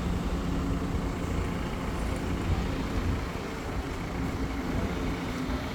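An engine running steadily, a low rumble with a steady hum.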